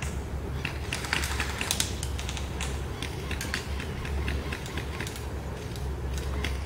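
Paintball guns firing: irregular sharp pops, several in quick succession about a second to two seconds in, then scattered single shots, over a steady low rumble.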